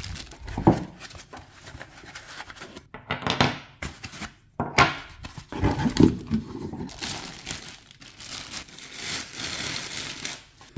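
Plastic packaging crinkling and cardboard box rustling as a boom arm is unpacked, with several knocks of parts against the box and table. A longer spell of continuous crinkling comes near the end.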